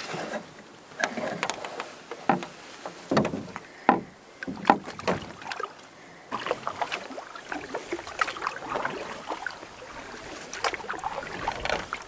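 Irregular knocks and bumps on the hull of a small solo canoe, with small water sounds, as a landing net and fishing gear are handled aboard. The knocks come thicker from about six seconds in.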